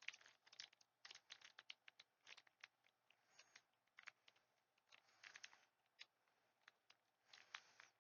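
Faint crinkling and crackling of a Pokémon booster pack's foil wrapper as hands work at tearing it open: many irregular sharp crackles, with a few short longer rustles.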